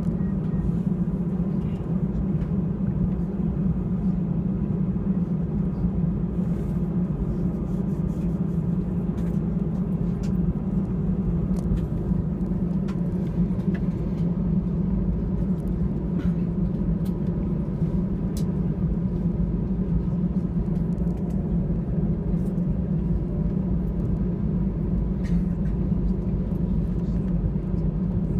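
Steady low hum of an Airbus A320's jet engines at taxi thrust, heard from inside the passenger cabin, holding an even level with a few faint clicks and rattles.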